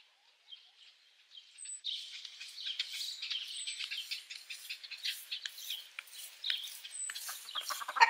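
Small birds chirping and calling in quick, overlapping notes, starting about a second and a half in, with a short high whistled note that recurs every couple of seconds.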